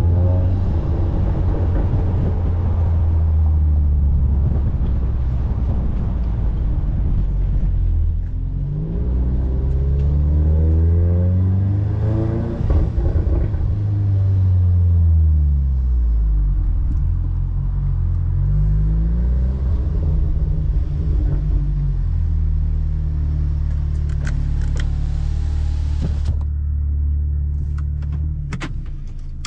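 Catless Audi S3's turbocharged four-cylinder exhaust heard from inside the cabin, revving up and falling back several times, with a burst of pops and crackles on the overrun about halfway through. Near the end it settles to a lower, quieter idle.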